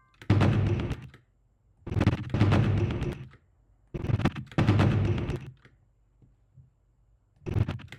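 Stock whoosh sound effects for flung sleeves and fast swipes, layered with heavy drum hits from the background music, which are cut to land on each move. They come in four bursts of about a second each; the middle two each hold two hits.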